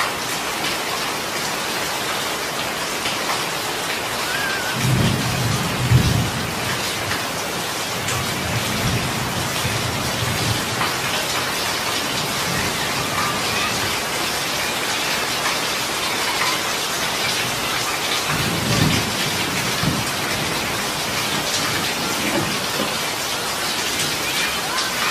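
Steady downpour of rain falling on a paved street and roofs. Brief low rumbles break through about five to six seconds in, the loudest about six seconds in, and again near nineteen seconds.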